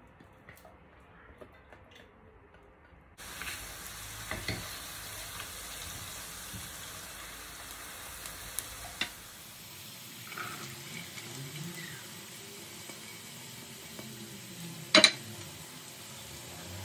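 Food frying and sizzling in a pan while it is stirred, with a few clinks of the utensil on the pan and one loud knock about fifteen seconds in. The first three seconds are nearly quiet before the sizzling starts abruptly.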